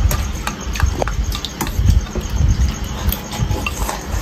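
Bowls and spoons being handled on a dining table: irregular light clicks over low thuds.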